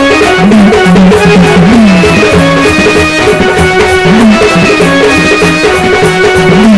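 Marathi gondhal folk music: a pitched melody with plucked string instruments over a steady drum beat, playing loud and continuously.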